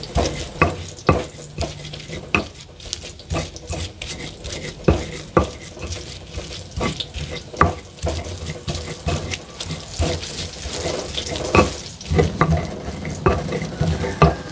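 Stone pestle (ulekan) knocking and grinding against a stone mortar (cobek), crushing fried chillies, shallots and garlic into sambal, in irregular sharp knocks about one or two a second. Eggplant frying in oil in a wok sizzles steadily underneath.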